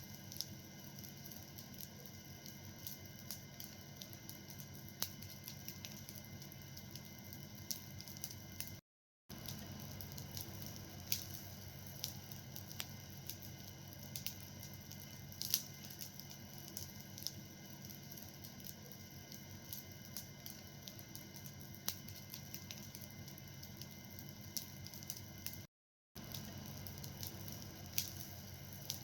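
Fire burning with irregular crackles and occasional louder pops over a steady soft hiss. The sound cuts out completely for a moment twice.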